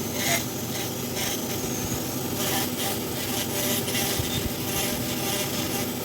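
A tool rasping and rubbing against wood in irregular short strokes, over a steady background hum.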